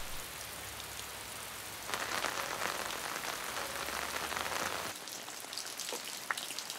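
Steady rain falling on rows of earthenware crocks, growing louder about two seconds in. Near the end it gives way to a quieter patter with separate drops falling from a tiled roof edge.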